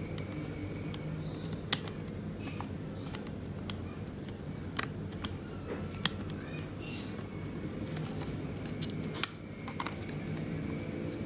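Scattered sharp clicks and taps of small plastic laptop parts being handled and fitted: the optical drive's faceplate going onto an HDD caddy. The clicks are loudest about two seconds in and again about nine seconds in, over a steady low hum.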